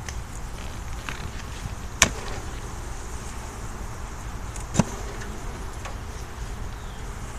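Honeybees buzzing around an open hive, with two sharp knocks about two seconds in and again near five seconds, wooden frames or a hive tool striking the hive box as frames are moved.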